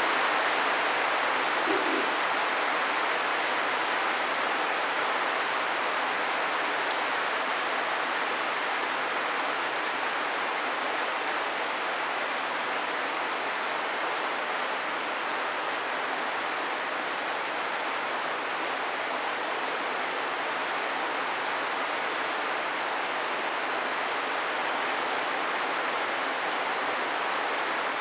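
Steady rain falling, an even hiss that eases slightly over the first several seconds and then holds steady.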